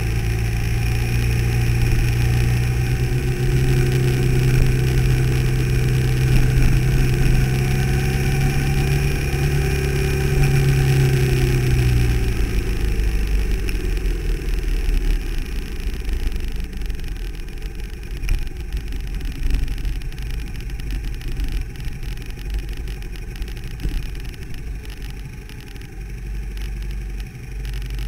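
Car engine and road noise heard from inside the cabin while driving. A steady engine note carries for the first half, then bends down and fades about halfway through as the car slows, leaving a quieter low rumble and hiss.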